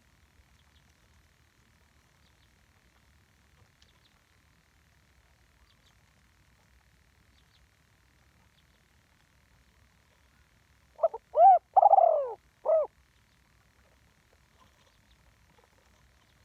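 Spotted dove cooing one phrase of four low notes, two short, one longer, then a short final note, about eleven seconds in; it is the one-'kuk' song type.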